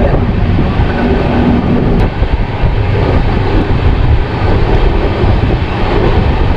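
Passenger train running at speed: a loud, steady rumble of the coach's wheels on the rails.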